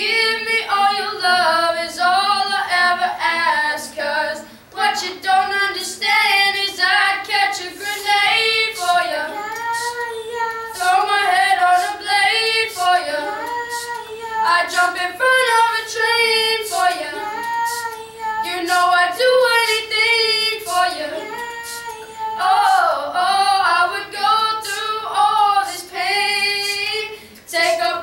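A group of boys singing a pop song together without accompaniment, with a short break about four seconds in and another near the end.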